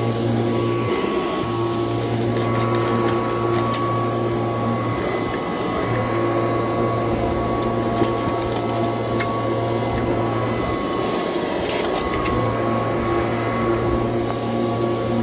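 Kirby Heritage II upright vacuum running steadily as it is pushed over a rug, with scattered sharp clicks and crunch as debris is sucked through its direct-air fan.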